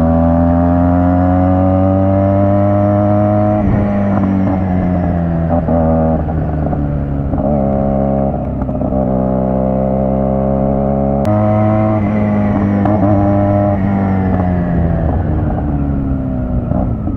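Motorcycle engine running under way. Its pitch climbs slowly, dips a few times, jumps with a click about eleven seconds in, then sinks steadily near the end as the bike slows.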